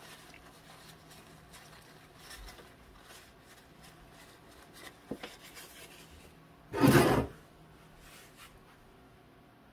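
Tissue paper rubbing over a small volume-control circuit board as the penetrating lubricant is wiped off before greasing: soft rustling, with one louder short rustle of the tissue about seven seconds in.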